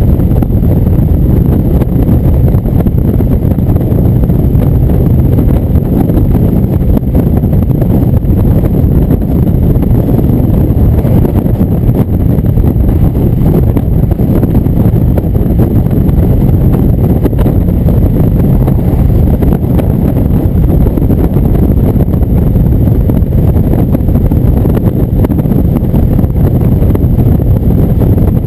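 Indian V-twin motorcycle cruising steadily at highway speed, heard from the handlebar as a loud, even rush of wind on the microphone mixed with the engine's low drone.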